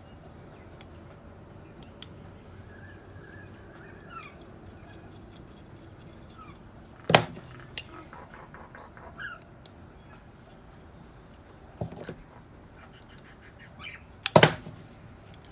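Small metal clicks and scrapes of a screwdriver working the fuel mixture screw out of a Solex 34 PICT-3 carburettor's cast alloy body, handled by hand. Sharp knocks about 7 s and 14 s in, with a lighter one near 12 s.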